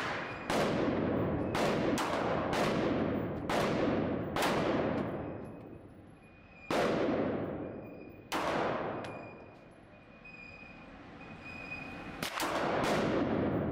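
Semi-automatic handgun shots on an indoor range, fired one at a time at uneven spacing, about ten in all. Each sharp crack rings out in a long echo, and there is a pause of a few seconds before a quick last pair.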